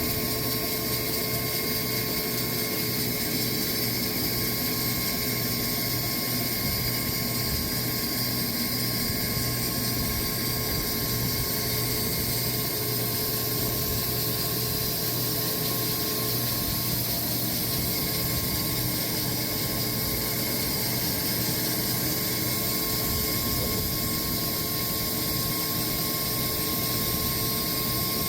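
Sawmill running steadily while sawing slabs from a Bastogne walnut log: an even machine drone with several constant tones and no change in level.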